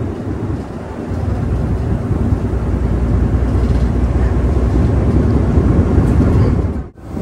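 Steady low rumble of wind and ship noise on the deck of a car ferry under way, uneven like wind on the microphone; it swells about a second in and cuts off abruptly near the end.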